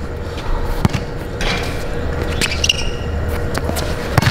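Basketball bouncing a few times on an outdoor court as a player dribbles. The bounces are sparse, one near the start, one a little under a second in and several near the end as the player drives. Between them comes a stretch of scuffing hiss.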